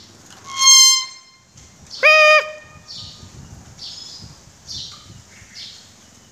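Common hill myna calling: a loud, sharp, high whistle about half a second in, then a lower call held at one steady pitch for about half a second, followed by fainter high chirps.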